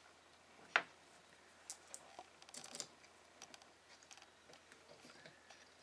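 Faint scattered clicks of the small parts of a quick-detachable scope ring, its lever and cam screw, being picked up and fitted to the ring's cam plate by hand, with one sharper click about a second in.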